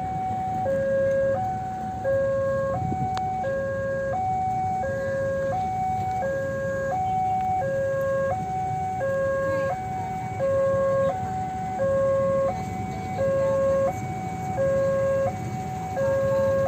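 Electronic two-tone warning alarm sounding hi-lo, a lower and a higher tone alternating about every 0.7 seconds without a break, over a steady low rumble.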